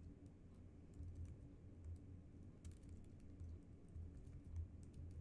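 Faint typing on a computer keyboard: quick, irregular key clicks over a low background hum.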